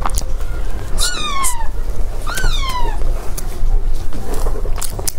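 A cat meowing twice, each meow rising briefly then falling in pitch, with soft clicks of chewing between them.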